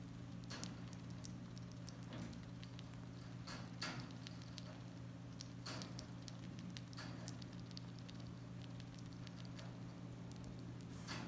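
A tree squirrel chewing a ripe banana: irregular small clicks and smacks of its mouth on the soft fruit, over a steady low hum.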